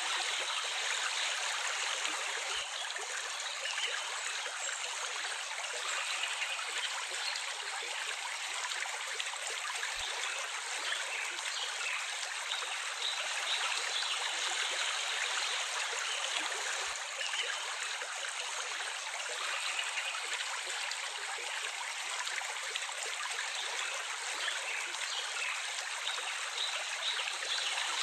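Running water flowing steadily, an even continuous babble like a stream.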